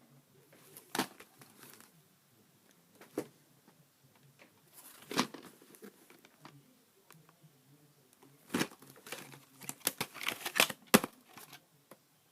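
VHS tapes and their plastic cases being handled: scattered clicks, knocks and rustling, busiest in a run of quick clicks near the end.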